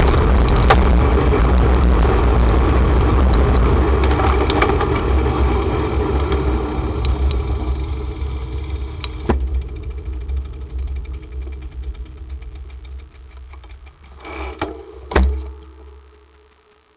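Wind and road rumble on the microphone of a camera on a moving bicycle, dying away steadily as the bike slows. Fast, even ticking of the bicycle's freewheel comes through as the bike coasts, and there are two knocks near the end.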